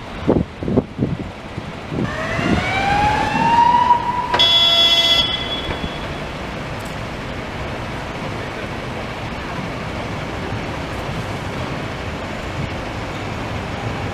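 Street traffic hum with a pitched whine rising over about two seconds, then a short steady horn-like tone about four seconds in, followed by an even steady rumble of city traffic.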